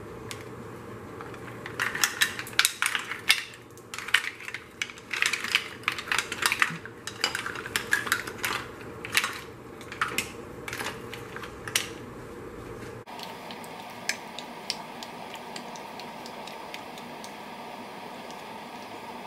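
Green-lipped mussel shells clattering against each other and the bowl as they are tipped into a pot of broth: a rapid, irregular run of sharp clacks for about ten seconds. After that come only a few faint taps.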